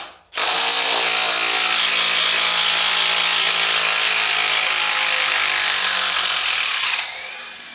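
DeWalt DCF899 high-torque 1/2-inch cordless impact wrench hammering a 10-inch lag bolt into a wooden beam, the rapid impacts running on under load. There is a short break just at the start, then steady hammering until near the end, when it fades and stops.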